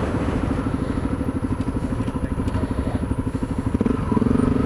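Honda dual-sport motorcycle's single-cylinder engine running at low revs as the bike comes to a stop, a steady even pulsing beat. There is a brief louder rise near the end.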